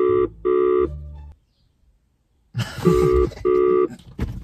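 Phone ringback tone heard through a phone's speaker: a double ring, 'ring-ring', then a pause of about two seconds and another 'ring-ring'. The called phone is ringing and has not yet been picked up.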